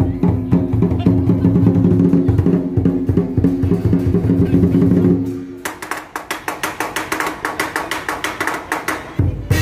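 Lion dance percussion: a big Chinese drum beating with gong. A little over halfway through, the drum drops out, leaving bright clashing strokes at about four a second, likely cymbals. The drum comes back in just before the end.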